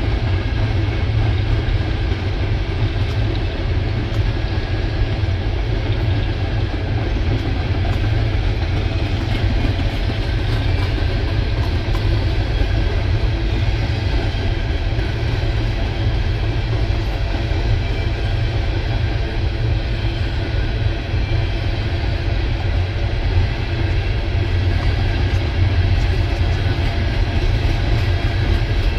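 Empty coal hopper cars of a CSX freight train rolling past at trackside: a steady, unbroken rumble of steel wheels on rail.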